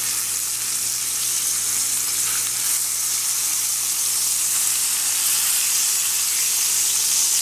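Thick almaco jack fish steak frying in hot oil with garlic in a cast iron grill pan: a steady, even sizzle.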